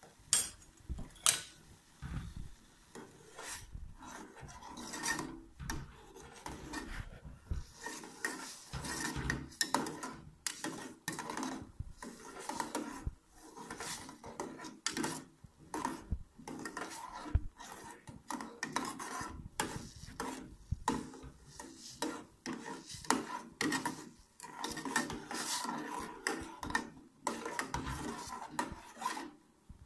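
A metal ladle stirring boiling liquid in a metal pot, scraping and knocking against the pot's sides and bottom in irregular strokes. Two sharp knocks within the first second and a half are the loudest.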